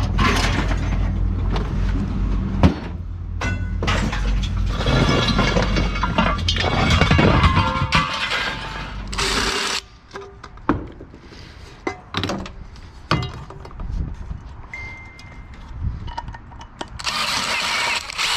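Scrap metal being moved and loaded into a pickup bed: clattering, knocking and crashing over a steady low rumble for about ten seconds, then scattered knocks and clicks.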